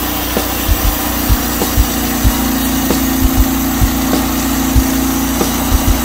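Portable band sawmill cutting a log, its 15 hp Lifan LF190F single-cylinder petrol engine running steadily under load as the blade runs through the wood. Short low thumps come at uneven intervals, about two a second.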